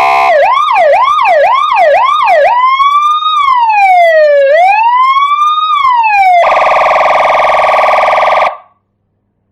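Electronic 12-tone siren module sounding loud through a red 25-watt, 8-ohm horn loudspeaker, stepping through its tones. A fast yelp of about five quick rising-and-falling sweeps gives way to a slower wail that rises and falls twice, then a harsh steady blare that cuts off suddenly near the end.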